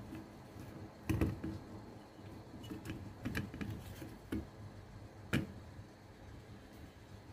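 Raw carrot chunks knocking against a stainless steel bowl as they are moved by hand: scattered light knocks and clicks, the sharpest just over a second in and again about five seconds in.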